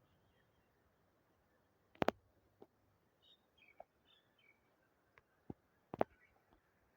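A few faint bird chirps over a quiet background, with two sharp knocks about four seconds apart and a few lighter ticks between them.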